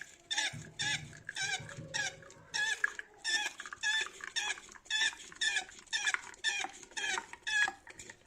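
Rhythmic squeaking, about two squeaks a second, from the hand-worked piston pump of a WACACO Minipresso GR portable espresso maker being pumped to build pressure.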